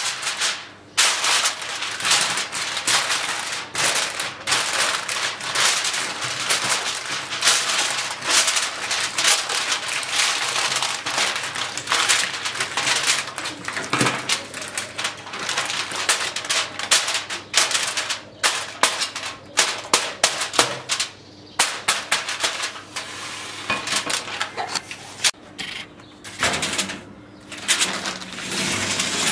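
Aluminium foil being crinkled, crimped and smoothed by hand over a baking tray: a loud, dense crackling rustle made of many sharp little clicks.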